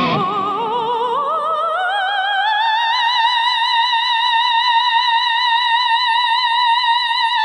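Soprano singing one long high note with wide vibrato. The note slides upward over about three seconds, then is held, with very little accompaniment beneath it.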